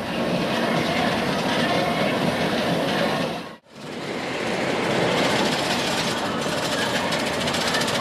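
Fujiyama steel roller coaster train running along its track, a steady mechanical running noise with fast fine ticking; the sound cuts out briefly a little over a third of the way in.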